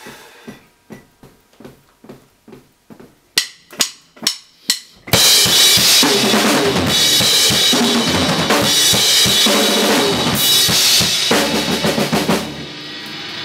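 Soft clicks about twice a second, then a run of louder, quicker clicks. About five seconds in, a rock band with drum kit and electric bass comes in together and plays loudly, getting quieter near the end.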